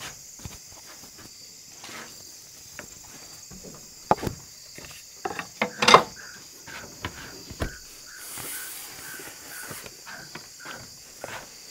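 Steady chorus of crickets and other insects, with scattered clicks and knocks and a few short squeaks about halfway through from a dry-erase marker writing on a whiteboard.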